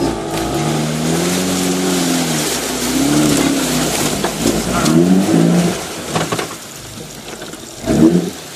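Suzuki SJ413's four-cylinder petrol engine revving up and down under load as the 4x4 climbs out of a muddy, water-filled pit, its pitch rising and falling several times, heard from inside the cabin. A steady rush of tyre, mud and water noise runs underneath.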